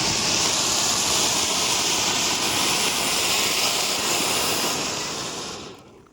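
Firework burning with a loud, steady jet hiss, like a rocket or fountain cracker, which dies away near the end.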